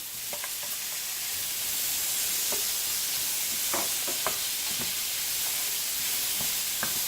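Chicken and vegetables sizzling in a hot frying pan, the sizzle swelling over the first couple of seconds, with scattered clicks and scrapes of a utensil stirring.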